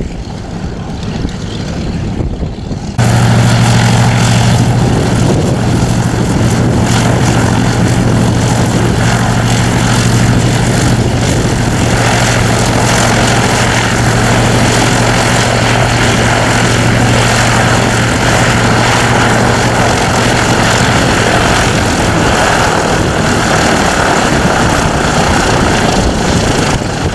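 Piston-engined propeller aircraft running with a loud, steady drone that starts abruptly about three seconds in. The engine tones fade somewhat in the last several seconds while the propeller and wind noise continue.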